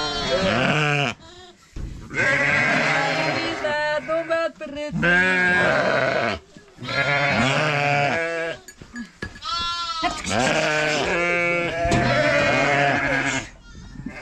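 A flock of sheep bleating, many quavering calls overlapping in several bouts with short lulls between them.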